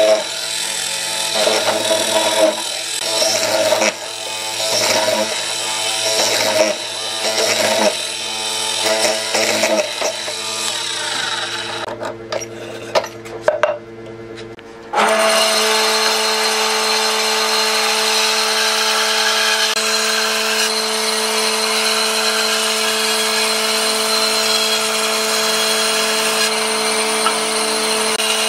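Benchtop hollow-chisel mortiser plunging its square chisel into softwood in repeated strokes, about one a second, then falling quieter with a few clicks. About 15 seconds in, a band saw is heard running steadily with an even motor hum.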